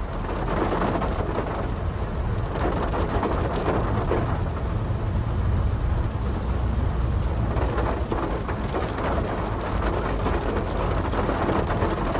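Inside a Honda Brio being driven in the rain: steady low engine and road rumble under an even hiss of rain and wet tyres.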